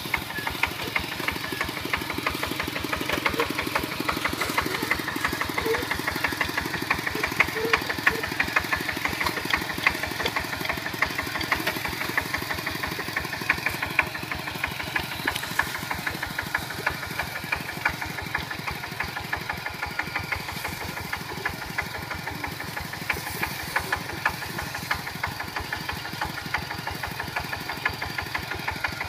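Kubota walk-behind tractor's single-cylinder diesel engine running steadily with a rapid, even knocking beat of its firing strokes.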